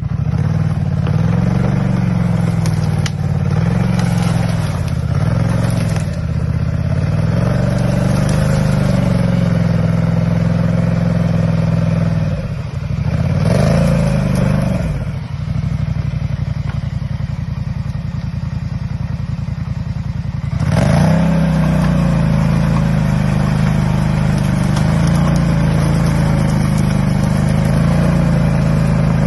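ATV engine running and revving up and down repeatedly as the quad is worked through snow and brush, dropping to a lower, quieter speed in the middle and revving back up to a steady higher speed about two-thirds of the way through.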